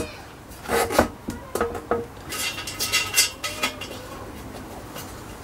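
Hand-made sheet-metal motorcycle battery box being pushed and worked into place over a plastic battery mount, clanking and rattling with short metallic knocks and brief rings. The knocks are busiest in the first three and a half seconds and die down to quieter handling noise near the end.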